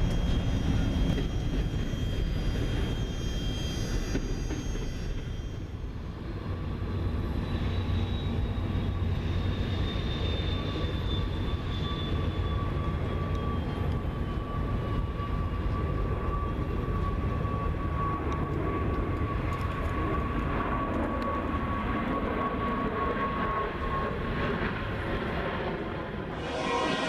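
Freight train noise: a double-stack container train rolling past, then BNSF diesel locomotives crossing an overpass with a low steady rumble, a steady high whine, and a second whine that falls slowly in pitch.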